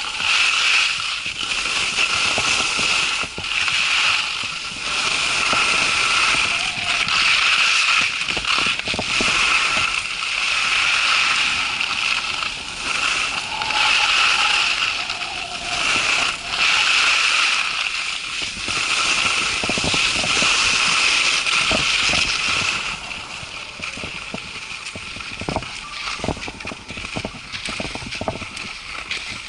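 Strong gusty wind buffeting the camera's microphone, swelling and easing every second or two, with a high whistle riding on the gusts. The gusts die down about 23 seconds in, leaving scattered knocks and clicks.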